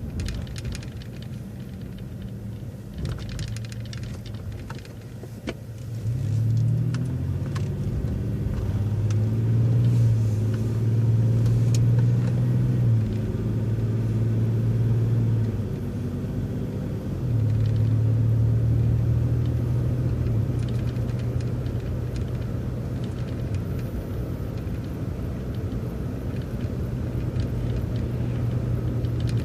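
City bus engine idling at a stop sign, then pulling away about six seconds in and accelerating through the turn; its hum rises, drops back a couple of times as it changes speed, then runs steadily.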